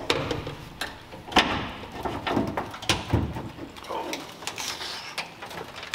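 Steel hood of a 1968 Ford F-100 being unlatched and lifted open: several sharp metal knocks and clunks with creaking and scraping as it swings up.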